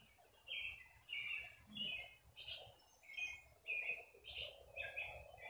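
A songbird singing a steady run of short, high chirps, about two a second.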